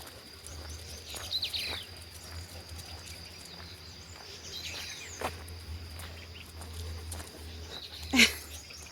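Birds calling outdoors in a few short falling chirps over a steady high-pitched drone. One short, loud sharp sound comes near the end.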